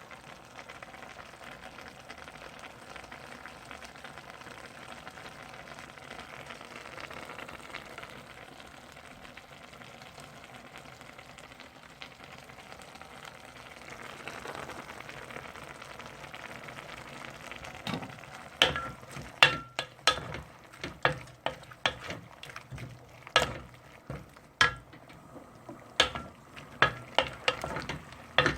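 Food frying in a pan with a steady sizzle. From about two-thirds of the way through, a utensil stirring it knocks and clanks against the pan in sharp, ringing strikes over the sizzle.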